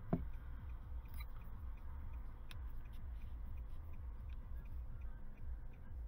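Low, uneven rumble of wind buffeting the microphone of a scope-mounted camera, with one thump just after the start and a steady faint ticking.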